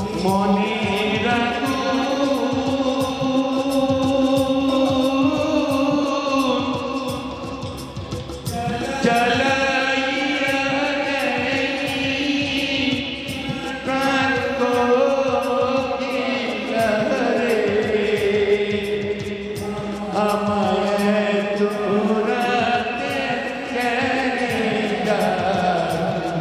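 A man singing a slow song through a public-address system with live band accompaniment, drawing out long held notes that bend and slide between phrases.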